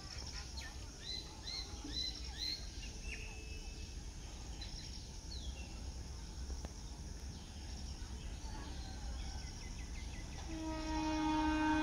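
Birds chirping over quiet rural background noise, with a run of short rising calls in the first few seconds. Near the end, the approaching WAG-7 freight locomotive's horn starts: one steady, loud blast that keeps sounding.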